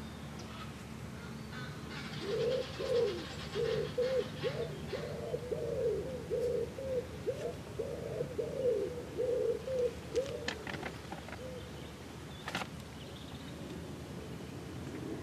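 A pigeon cooing: a run of about a dozen low, rounded notes in quick succession for several seconds, with a couple of light clicks near the end.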